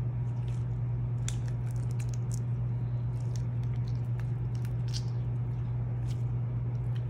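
Shiny blue slime being squeezed and stretched by hand, giving irregular small squelches and sticky clicks over a steady low hum.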